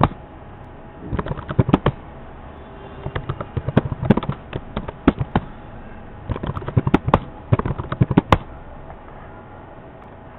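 Computer keyboard typing: three short bursts of rapid keystrokes with pauses between, the last ending about eight seconds in.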